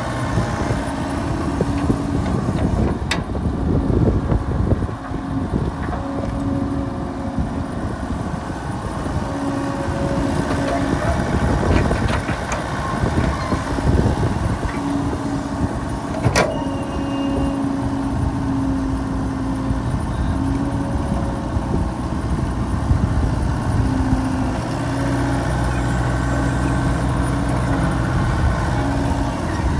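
Hitachi compact excavator's diesel engine running under load as the machine digs and swings, its note rising and falling as the hydraulics work, with a few sharp knocks.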